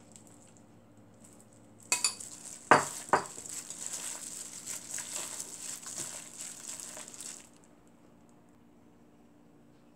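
A few sharp knocks of a spoon against the bowls about two seconds in as the last chili sauce is spooned in, then a hand in a thin plastic glove tossing blanched spinach with the sauce in a stainless steel bowl, a wet rustling that stops about seven seconds in.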